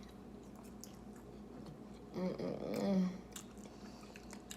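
Close-up chewing of steak, with small wet mouth clicks, and a short low vocal sound, like a murmur, a little past two seconds in.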